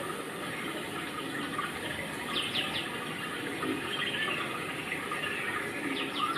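Steady rain falling and splashing, with a few brief high bird chirps about two and a half seconds in and again near the end.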